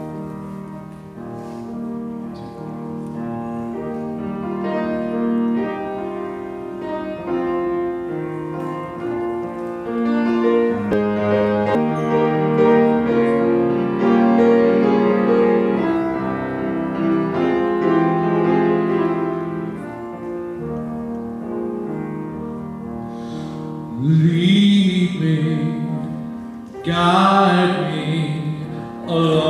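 Grand piano playing the introduction to a spiritual; near the end a man's voice comes in singing over the piano.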